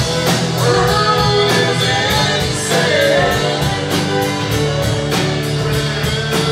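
Live rock band playing: a fiddle carries the melody with gliding notes over strummed acoustic guitar and drums, the cymbal keeping a steady beat of about three strokes a second.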